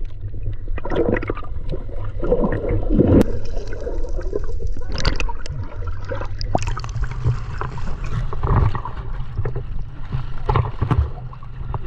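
Water sloshing and gurgling around a boat, with irregular splashes over a steady low rumble.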